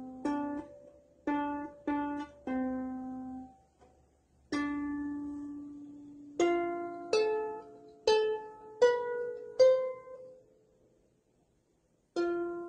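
Strings of a small wooden harp plucked by a cat's paw: single notes at uneven intervals, each ringing out and fading. In the second half a quicker run of notes climbs in pitch, then a pause of about two seconds before one more note near the end.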